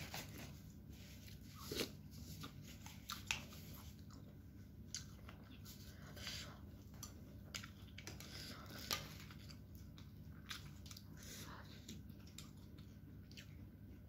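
A person eating meatballs in soup with a spoon: quiet chewing and mouth sounds with scattered short clicks, a few of them louder.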